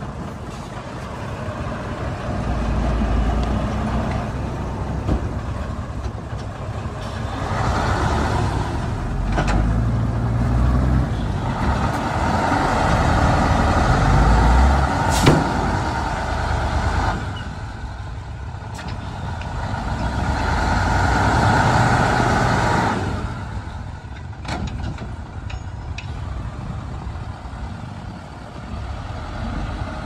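Heavy diesel earthmoving machinery working: a low engine rumble that rises and falls repeatedly as it is loaded, with a steady higher whine during the louder stretches and a few sharp knocks.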